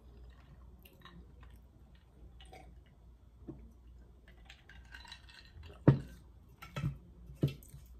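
A glass mason jar set down on a table with a sharp knock about six seconds in, followed by two lighter knocks as things are handled on the table. Before that, only faint quiet sounds of drinking from the jar.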